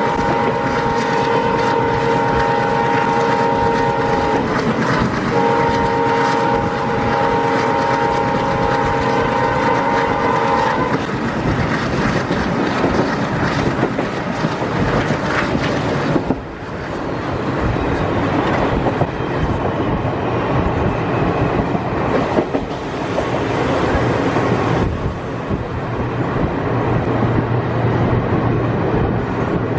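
Horn of a WDM3D ALCO diesel locomotive sounding two long blasts of about five seconds each, the first already going at the start and the second ending about eleven seconds in. Under and after them, the steady running noise of the passenger train's wheels on the rails.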